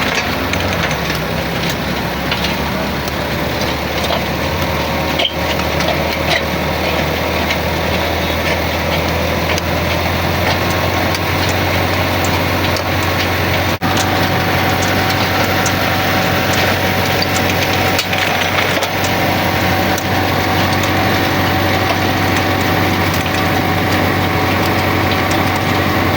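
Drilling machine cutting metal: a steady motor hum under a constant crackle of chips breaking off. A steady whine comes in about halfway through.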